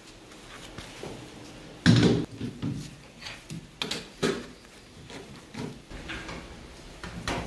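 Irregular clunks and knocks as a heavy pine log is fitted onto a wood lathe's four-jaw chuck and the chuck key works the jaws, metal and wood knocking together. The loudest knock comes about two seconds in, with a last cluster near the end.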